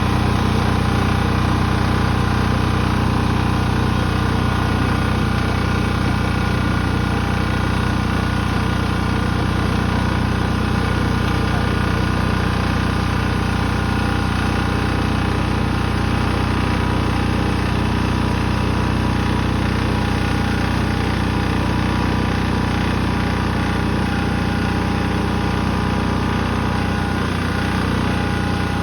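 Small engine of a snow-clearing machine running steadily at a constant speed.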